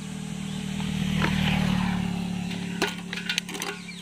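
A motorcycle engine running steadily. It grows louder about a second in and eases off again, and a few sharp clicks follow near the end.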